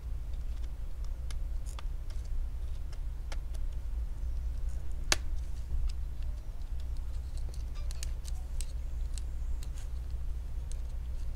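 Small plastic clicks and light taps as a plastic pry tool and gloved fingers work cables loose around the CPU fan inside an HP Spectre x360 laptop. One sharper click comes about five seconds in, over a steady low hum.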